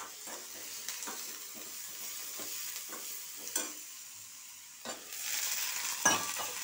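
A spatula stirring and scraping chopped beans and cabbage as they fry in a steel kadai, at about three strokes a second. The frying sizzle swells about five seconds in, and a sharp metal knock comes near the end.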